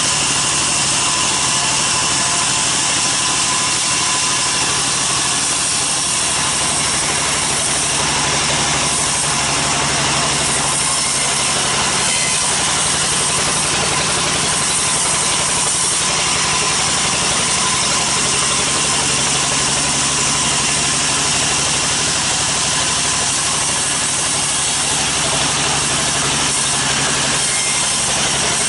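Sawmill bandsaw running steadily while its blade cuts lengthwise through a teak log.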